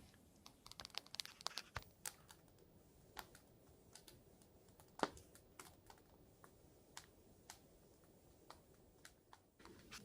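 Quiet handling noise: faint scattered crinkles and small clicks, like plastic packaging being handled, bunched in the first couple of seconds and then sparse.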